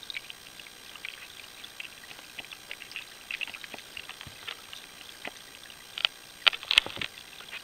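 Underwater river ambience: a steady crackle of small ticks and pops, with a cluster of sharper, louder clicks about six to seven seconds in.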